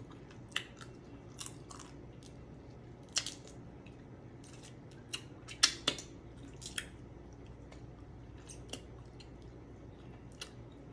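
Blue crab shell cracking and crunching as it is broken apart and eaten, with chewing: scattered sharp cracks and snaps, a few louder ones clustered about halfway through.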